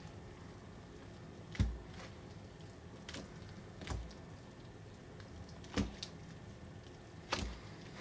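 Wet, gritty slime from a dissolved excavation block being squeezed by hand and dropping back into a glass bowl: about six short, soft wet plops and squelches, the loudest about one and a half seconds in.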